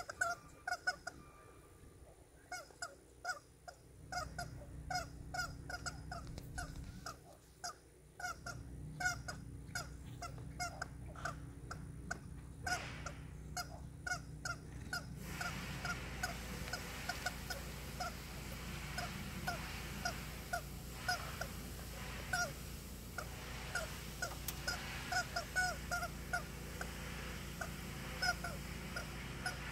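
Rubber chicken toy squawking over and over as a horse chews and squeezes it in its mouth, short honking squeaks at about two a second.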